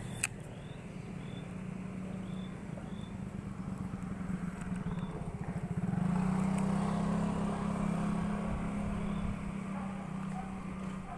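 Motorcycle engine running, getting louder about halfway through and then holding steady. A sharp click comes right at the start.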